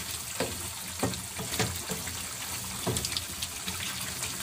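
Wooden spatula stirring chicken pieces through a thick, simmering soy-sauce gravy in a stone-coated wok: several short scrapes and knocks against the pan over a steady bubbling sizzle, with a low hum underneath.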